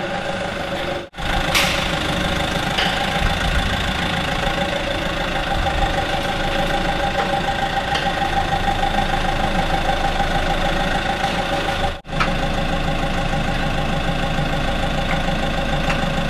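Forklift engine idling steadily while the truck's trunnion is set onto the frame. The sound cuts out briefly twice.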